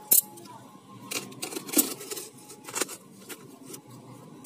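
Utility knife and hands working at a taped cardboard parcel: a handful of short, irregular scratches and taps as the blade picks at the packing tape.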